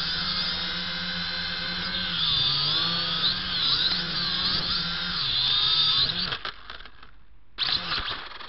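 JJRC H8D quadcopter's small motors and propellers whining, the pitch wavering up and down with the throttle. About six and a half seconds in they cut out, spin up again for about a second near the end and stop, with the drone lying upside down.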